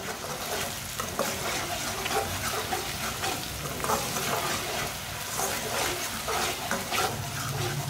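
Chopped onion and garlic sizzling in hot oil in a metal karahi while a spatula stirs and scrapes against the pan in irregular strokes. This is the garlic being sautéed with lightly browned onions.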